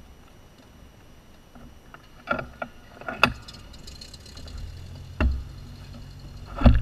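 Knocks and rattles in a glider cockpit as the glider is rocked upright with its wings coming level on the grass: four sharp knocks, the loudest near the end, over a low steady hum that builds from about halfway through.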